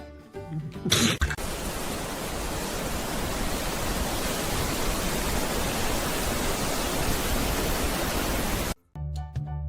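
A steady, even hiss or rushing noise that starts abruptly about a second in and cuts off suddenly near the end.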